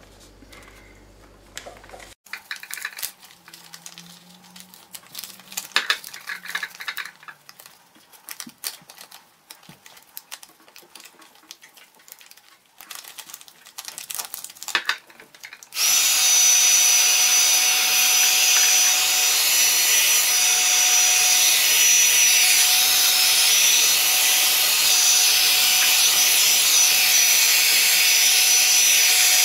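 Thin plastic sheet crinkling and rustling as it is wrapped by hand around a bottle cap. About halfway through, an electric heat gun switches on and runs with a steady loud blowing noise and a thin high whine, heat-shrinking the plastic onto the bottle neck.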